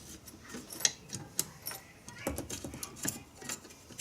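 Scattered light clicks and taps of small metal parts being handled on an animatronic's eye mechanism, with one sharper click about a second in.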